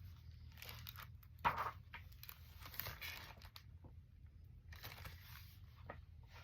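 Faint rustling and crinkling of a paper book being handled and its pages turned, with one louder rustle about a second and a half in.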